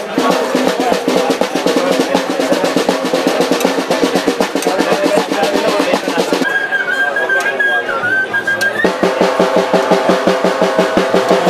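Music with fast, driving drums and snare rolls. About six and a half seconds in, the drums drop out for about two seconds under a single held high note, then come back in with a stronger beat.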